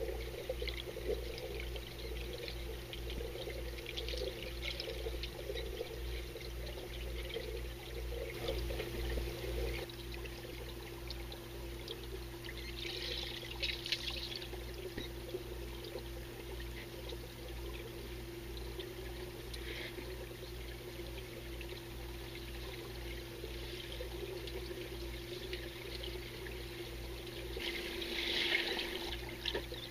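Muffled underwater pool sound picked up by a submerged camera: water churning over a steady low hum. Two louder bursts of bubbling, about halfway through and near the end.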